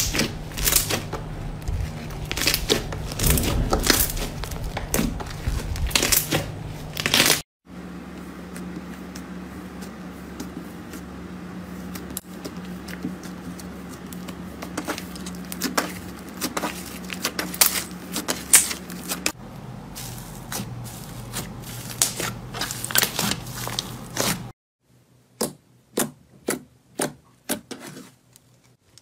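Hands squeezing, pressing and poking slime, making irregular sticky clicks, pops and crackles. In the last few seconds the clicks are fewer and spaced apart over a quieter background.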